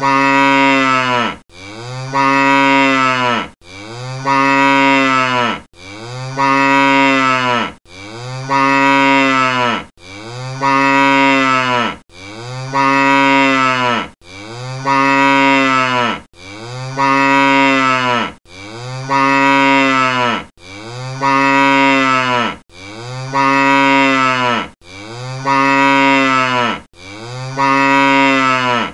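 Domestic cow mooing: the same long moo repeats about fourteen times, one every two seconds. Each moo rises a little in pitch and then drops off at the end.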